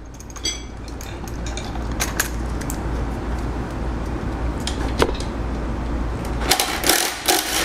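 Cordless ratchet running steadily on a socket and long extension, undoing the 13 mm nut on an alternator's battery terminal, with sharp metal clinks of the socket near the end.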